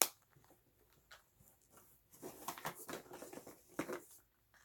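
Small cosmetic packages being handled: a sharp plastic click at the start, then soft rustling and light tapping that pick up about halfway, with another distinct click near the end.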